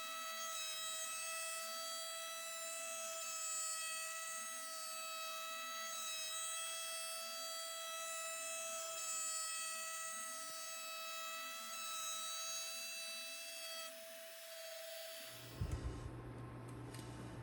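CNC router spindle whining steadily while its bit cuts a counterbore into plywood, with a fainter sound below it that rises and falls in a repeating pattern as the machine moves. About fifteen seconds in the whine stops, followed by a few knocks and a low steady hum.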